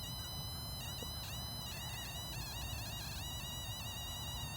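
RF meter's audio output giving a steady high-pitched electronic buzz that dips briefly in pitch now and then, the meter's sound for strong microwave signals in the air.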